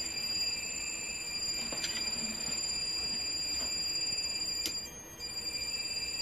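Three-phase induction motor driven by a variable-frequency drive, giving a steady high-pitched whine of several tones, typical of the drive's switching. The whine breaks off briefly about five seconds in and comes back at a slightly different pitch, with a few faint clicks along the way.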